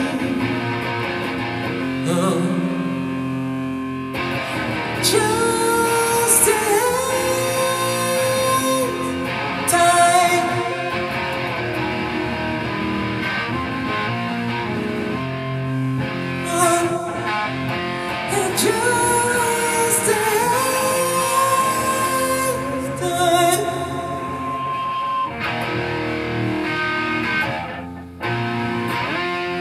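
A song performed live: electric guitar played through a Marshall amplifier, with singing over it at times. Long held notes bend and slide in pitch, and the music dips briefly near the end.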